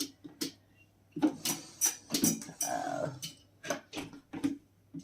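Irregular clicks and knocks of something being handled and tried open by hand, with a short squeak or creak about two and a half seconds in.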